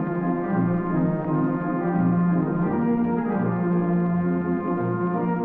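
Standaart theatre organ playing sustained chords with a brassy reed tone over a regularly pulsing bass note, with the dull, narrow sound of an old 78 rpm record.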